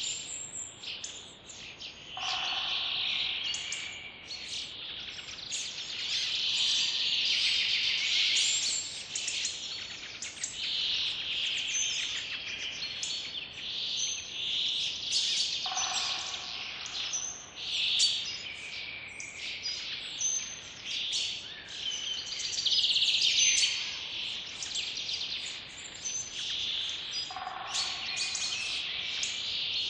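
Birdsong chorus: many small birds chirping and singing at once in a thick, unbroken stream of high notes. A lower call comes back three times, about twelve seconds apart.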